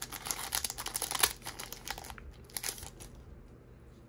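Foil wrapper of a Yu-Gi-Oh booster pack crinkling and crackling as it is torn open by hand. The crinkling is dense for about two seconds, then thins to a few last crackles.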